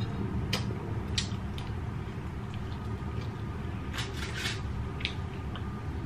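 Eating by hand: small wet clicks and smacks of chewing, and about four seconds in a brief crinkle of aluminium foil as the roast duck on it is handled, over a steady low background rumble.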